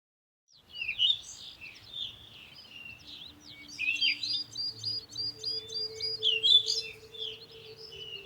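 Several birds calling and singing together, many short chirps and whistled notes overlapping, starting under a second in, with a quick run of repeated high notes in the middle. A faint steady low hum lies underneath.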